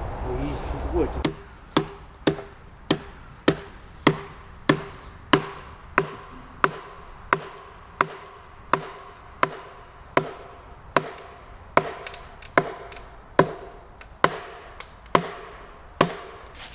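Steady chopping into a log with a hand tool, about one and a half sharp strikes a second, each with a faint ring, spacing out a little toward the end.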